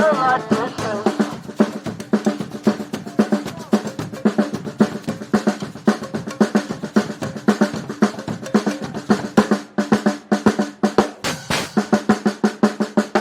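A brass band's percussion section playing a fast snare-and-bass-drum groove, with dense rapid strokes and rolls, after the horns drop out about half a second in.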